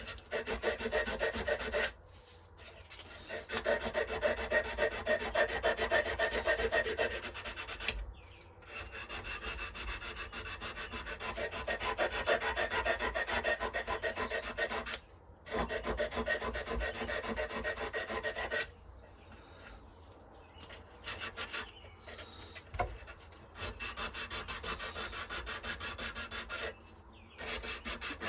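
Hand sanding with 180-grit sandpaper on a handmade knife, fast back-and-forth scrubbing strokes that remove file marks. The strokes come in runs of a few seconds, broken by short pauses.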